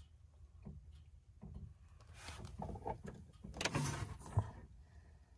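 Side-by-side UTV running, a low steady rumble heard inside its enclosed cab, with two louder swishing sounds about two and four seconds in.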